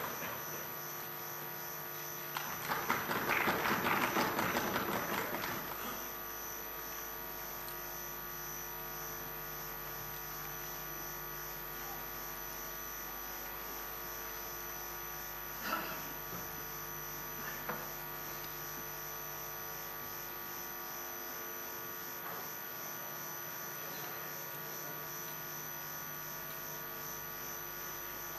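Steady electrical hum made of several constant tones. A short stretch of dense noise from the room comes about three seconds in. Two faint knocks follow about halfway through.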